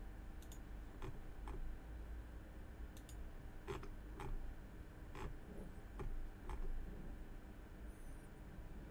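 Computer mouse clicks and scroll-wheel ticks, irregular and scattered, over a faint steady low hum.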